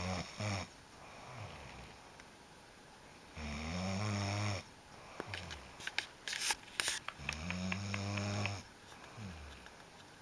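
A sleeping person snoring in a slow rhythm, with three loud rattling snores about three and a half seconds apart, each followed by a softer breath out. Between the second and third snores comes a brief cluster of sharp crackling clicks.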